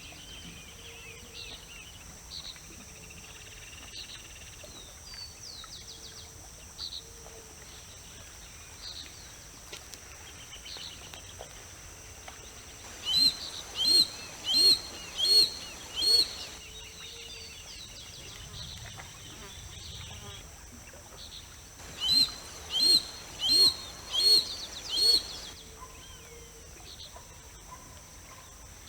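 Harris's hawk calling: two bouts of five loud, harsh calls, one call every 0.7 s or so, the first bout about halfway through and the second a few seconds later. Faint small-bird chirps and a steady high buzz run underneath.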